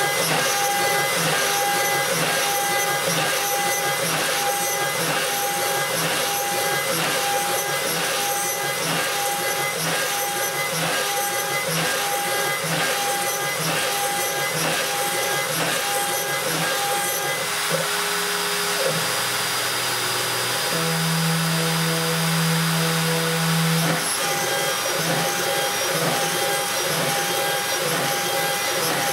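Homemade CNC wood router's spindle running, its end mill cutting into a 10 mm aluminium (AlCuMg1) plate with a steady high-pitched tone and a pulsing rhythm. For about six seconds past the middle the cutting pauses and a few steady humming tones step in pitch as the axes move to the next hole, then the cutting resumes.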